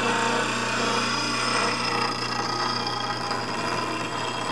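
Bench grinder running with a steady motor hum while a bowl gouge held in a sharpening jig is ground against the wheel, giving a continuous hiss of steel being ground.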